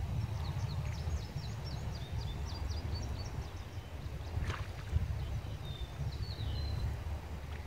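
Low, fluttering rumble of wind on the microphone, with a bird singing a quick run of high chirping notes in the first few seconds and a short falling call near the end.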